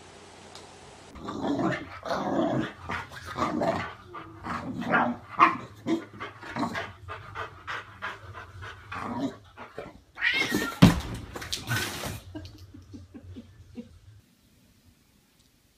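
A dog barking and growling in a run of short calls, with one loud, sharp burst about eleven seconds in; the calls stop about fourteen seconds in.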